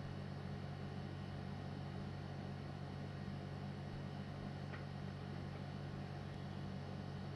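Steady low hum with a faint hiss over it: unchanging room background noise, with no speech.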